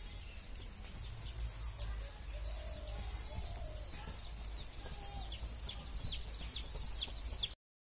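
Chickens clucking, with a quick run of high, falling chirps through the second half over a low rumble; the sound cuts off suddenly near the end.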